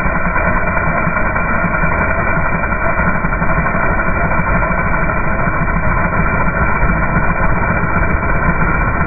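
Throttle-body-injected engine running, its sound slowed down along with the slow-motion picture: a steady, dull, muffled rumble with no high end.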